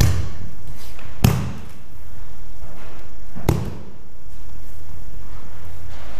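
Three sharp thuds of an aikido partner's body hitting the mats as he is thrown and pinned from kneeling: one at the start, the loudest about a second in, and another about three and a half seconds in.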